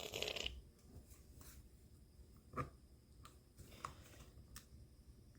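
Quiet handling noises of small iPod parts: a brief rustle at the start, then a few small, sharp clicks and taps.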